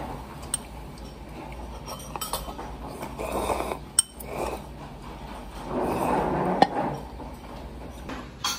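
Cutlery and dishes clinking during a meal: a few separate sharp clinks spread out, with softer handling sounds between them.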